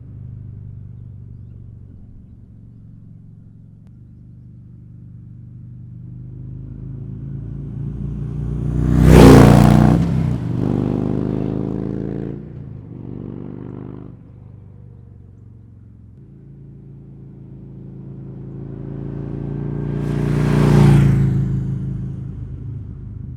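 Harley-Davidson V-twin touring motorcycle with Vance & Hines Monster Oval slip-on mufflers passing by twice. The exhaust note swells to a loud peak about nine seconds in and again about twenty-one seconds in, then fades each time, with a low engine rumble in between.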